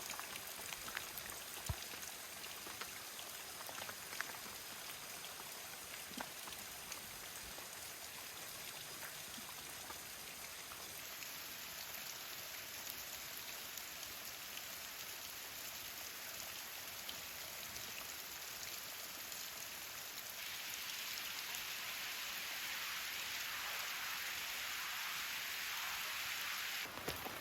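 Steady hiss of falling, splashing water, a little louder about two-thirds of the way through.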